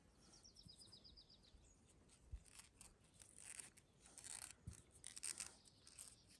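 Near silence with faint rustling and light handling noises from work on a leather strap. In the first second and a half there is also a faint, quick run of high ticks that falls slightly in pitch.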